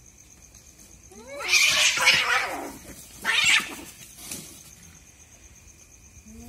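Two cats fighting: a short rising yowl breaks into a loud hissing screech about a second in, and a second, shorter screech comes about a second later.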